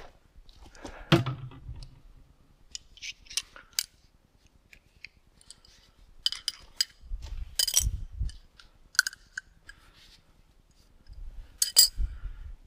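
Scattered light clinks and clicks of hard objects being handled, with three louder knocks that carry a dull thud, about one, eight and twelve seconds in.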